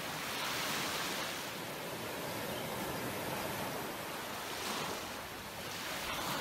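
Small waves breaking and washing up a sandy beach in shallow surf. The surf noise swells about half a second in and again twice near the end.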